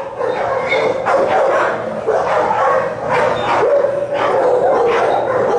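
Other shelter dogs barking and yipping without a break, several voices overlapping.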